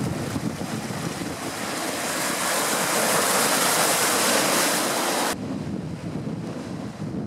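Sea surf breaking and splashing over rocks, a steady rushing wash of water. It grows louder toward the middle and turns suddenly softer and duller a little after five seconds in.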